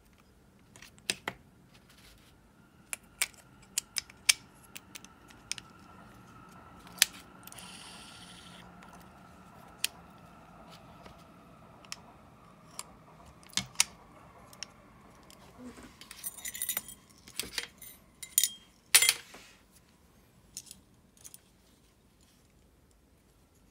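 Light clicks and metal taps of a Shimano Calcutta Conquest 400 baitcasting reel being handled and worked on. About six seconds in, a faint steady whir of the spool spinning freely with the brake off starts and slowly dies away over several seconds. A denser run of sharper clicks follows, the loudest near the end.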